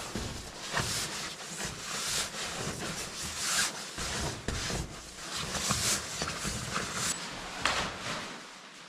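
Rustling, rubbing and scraping as camping gear is handled and packed, with scattered small knocks.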